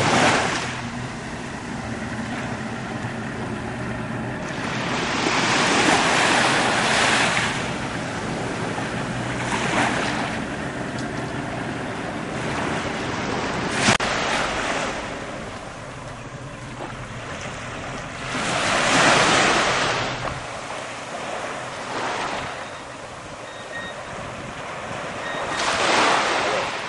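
Sea waves washing in and breaking, swelling and fading every few seconds, with wind buffeting the microphone. A faint steady low hum runs underneath and stops about two-thirds of the way through.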